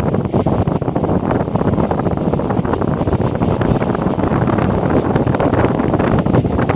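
Vent New VOP 610 wall fan running steadily, its airflow buffeting the microphone as a loud, even rush of wind noise.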